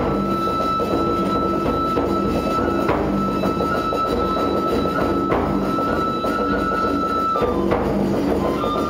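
Kagura accompaniment music: a high, reedy flute holding long notes that break off and start again every couple of seconds, over a dense, steady layer of percussion.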